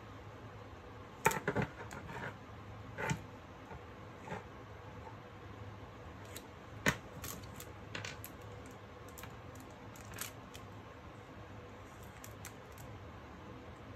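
Razer Huntsman Mini keyboard handled and tapped: scattered, irregular light clicks and knocks, a few sharper ones standing out in the first seven seconds.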